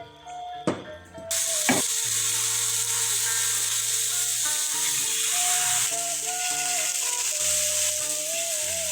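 A few sharp clicks, then a steady sizzle starts about a second in and carries on: food frying in hot oil in a pan.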